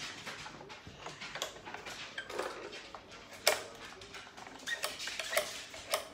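Plastic clicks and knocks from a child's toy plush-stuffing machine being handled and worked, irregular, with one sharp knock about three and a half seconds in.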